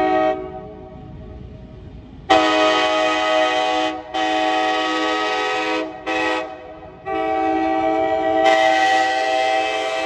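Nathan AirChime K5LA five-chime air horn, taken from a 1977 Amtrak FL9 locomotive, blowing its chord in a series of blasts: a blast ends just after the start, then after a two-second pause come two long blasts with a short break between them, a very short toot, and a long held blast that swells near the end.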